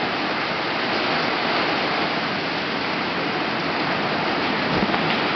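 Hurricane wind driving heavy, almost horizontal rain: a steady, dense rushing hiss, with a dull low thump near the end.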